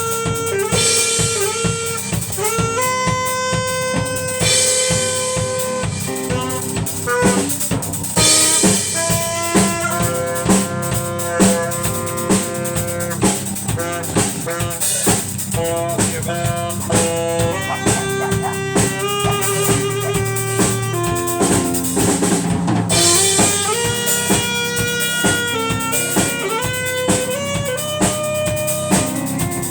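Instrumental band music: a drum kit keeping a steady beat with snare and rimshot hits under pitched melodic lines.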